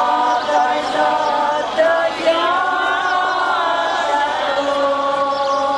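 A group of voices singing a slow Greek-Byzantine-rite liturgical chant, with long held notes that bend gently in pitch.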